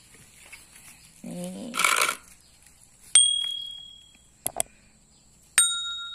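Sound effects from a like/subscribe/notification-bell overlay: two bright bell-like dings about two and a half seconds apart, each ringing on briefly, with quick clicks between and after them. A short vocal call is heard before the first ding.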